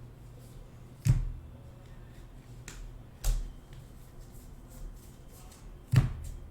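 Trading cards being handled: three sharp snaps, about a second in, a little past three seconds and at six seconds, with a fainter one in between, over a low steady hum.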